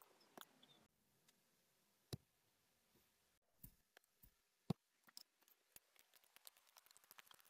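Faint, scattered clicks and soft taps of a metal palette knife pressing and spreading thick paint, with a few louder clicks around the middle.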